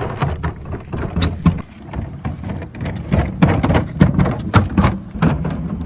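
Wheels of a portable 12V fridge rolling as it is pulled along by its handle, with a dense run of irregular clicks and crackle.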